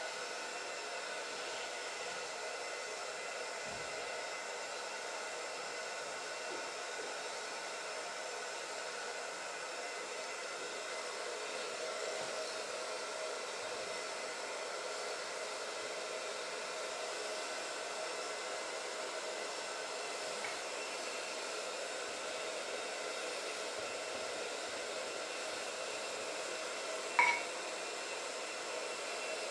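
Steady whir of a small electric fan or blower motor, with a faint hum of several fixed tones under it and one sharp clink near the end.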